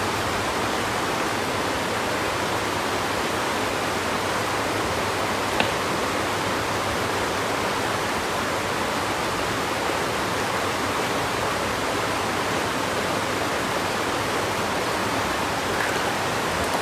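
Steady rushing of a shallow river flowing over stones, with one brief sharp click about five and a half seconds in.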